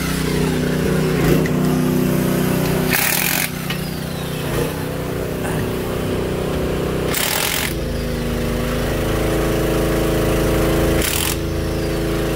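Impact wrench on a Jeep Wrangler JK's front-wheel lug nuts, fired in three short bursts of about half a second, a few seconds apart. Under it runs a steady mechanical hum that grows heavier about two-thirds of the way through.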